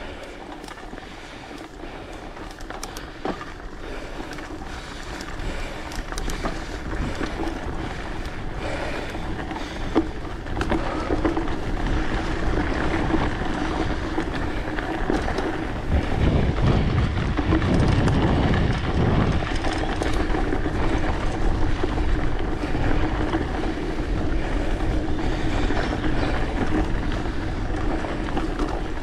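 Mountain bike riding along a forest trail: continuous rolling noise of tyres on the dirt, growing louder over the first dozen seconds. There is a sharp knock about ten seconds in and a heavier low rumble a few seconds later.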